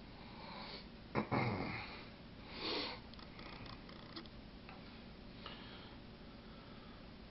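Faint handling of steel 1911 pistol parts on a cloth rag: a sharp knock about a second in, followed by a brief rustle, then a short sniff-like breath and a few light ticks.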